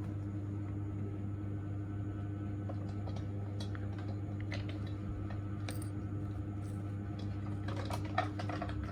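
Light clicks and taps of dental instruments over a steady low hum of clinic equipment, the clicks coming in a quick cluster near the end.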